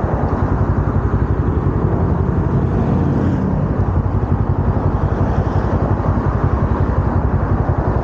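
Kawasaki Ninja 250R's parallel-twin engine idling steadily, with cross traffic passing.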